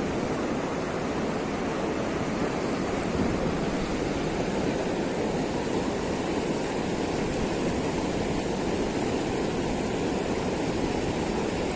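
Steady rush of fast river water running out below a weir's open gates, an even noise without a break.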